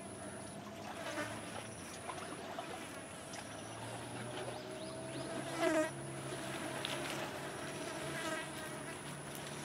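Insects buzzing: a low fly-like buzz and a steady high-pitched whine broken by short gaps. A few brief chattering calls come through, the loudest about halfway.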